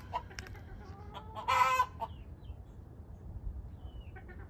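A flock of chickens clucking, with one loud, short call about a second and a half in.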